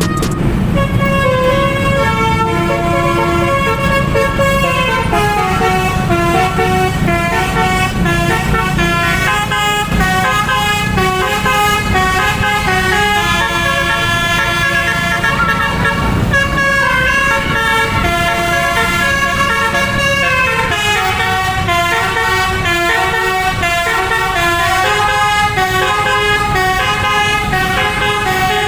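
A bus's 'telolet' musical horn playing a long tune of quick stepped notes over the low rumble of the running engine.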